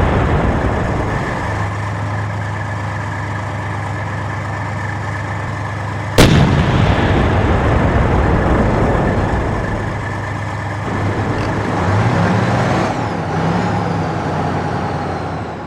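Tank engine running steadily, with a single loud cannon shot about six seconds in. Later the engine pitch rises and falls briefly, and the sound fades out at the end.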